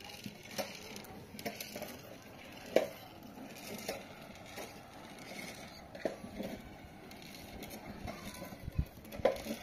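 Firewood sticks knocking and scraping as they are pushed and shifted under a griddle fire, a scatter of short wooden knocks with two sharper ones, about three seconds in and near the end.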